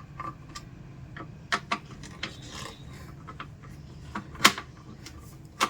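Screwdriver undoing the screws of an induction cooktop's cooling fan: scattered small clicks and scraping, with a sharper click about four and a half seconds in and another near the end.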